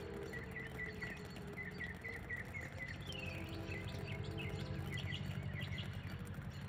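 A distant outdoor warning siren sounds very faintly as a low, slowly wavering tone. Over it, birds chirp in quick repeated notes, with a falling run of notes about three seconds in. A steady low background rumble runs underneath.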